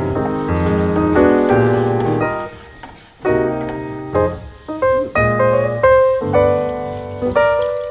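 Background piano music: chords and melody notes struck and left to fade, with a brief lull about three seconds in before the playing picks up again.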